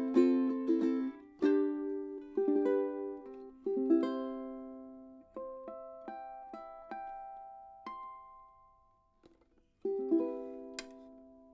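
Ukulele played solo: quick strumming for about a second, then single chords and plucked notes left to ring and fade, a short pause, and a final chord near the end that rings out.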